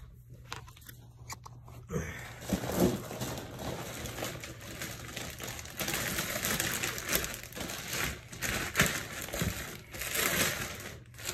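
Clear plastic bag crinkling and rustling as it is pulled off a large power amplifier. It starts about two seconds in, after a few light clicks, and grows busier in the second half.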